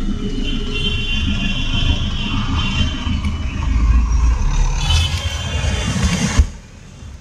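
Road traffic and the vehicle's own engine and tyres on a wet, waterlogged street, heard from inside the vehicle: a steady low rumble with a hiss of tyres on water. Near the end it cuts off abruptly to a much quieter hum.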